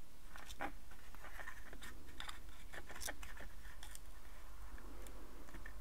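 Fingers handling a small plastic-card model building, peeling masking tape from behind a glued window frame: scattered small clicks and short scratchy rustles, most of them in the first four seconds, over a low steady hum.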